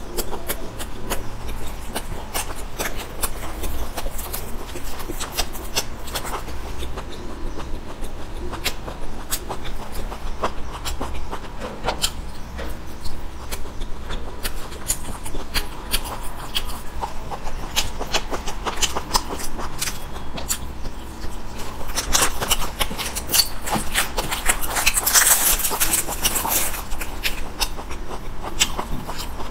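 Close-miked eating: a person chewing packaged snacks, a spicy snack strip and a chocolate sandwich cookie, with many small wet clicks and crunches. From about 22 to 27 seconds in, a louder, denser crinkling rustle.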